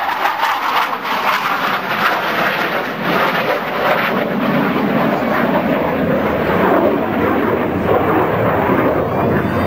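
F/A-18 Hornet jet fighter's twin General Electric F404 turbofans, a steady loud roar as the jet climbs and banks away after a high-speed pass; the roar settles lower in pitch as it goes.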